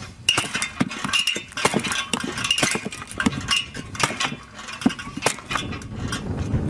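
Manual lever kindling splitter working through a wooden block: an irregular run of sharp knocks as the steel blade strikes and splits the wood, with clinks and the clatter of split sticks.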